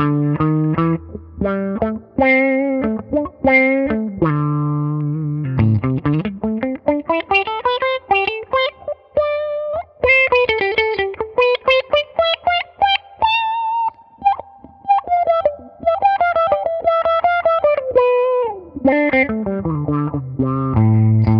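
Electric guitar played through a Mu-Tron Micro-Tron IV envelope filter, each note's tone swept by the filter. Single-note lines start low, climb up the neck from about five seconds in to high notes, then run back down to low notes near the end.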